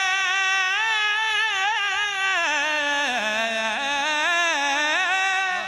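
A male naat singer holds one long, wavering melismatic note in a single voice. The pitch dips lower around the middle and then climbs back up.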